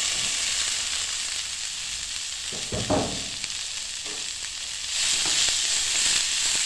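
Shredded cabbage frying in coconut oil in a non-stick frying pan, with a steady sizzle that gets louder in the last couple of seconds as a spatula stirs it. There is one brief, louder low knock about three seconds in.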